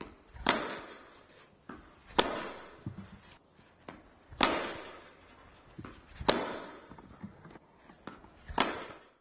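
Cricket bat striking a tennis ball five times, about every two seconds, each crack ringing on in the echo of an indoor hall, with softer knocks of the ball between strikes.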